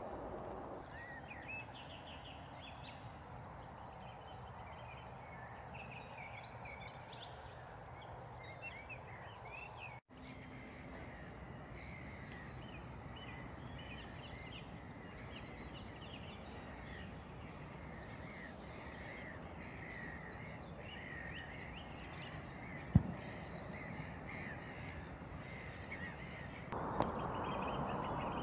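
Birds chirping and calling in a chorus over a steady low outdoor rumble, with a single sharp click late on.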